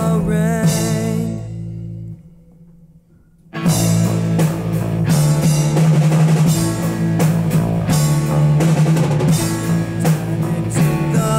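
Instrumental passage of a rock song played by a band on guitars, bass and drum kit. The music drops almost to silence about two seconds in, and the full band with drums comes back in a second and a half later.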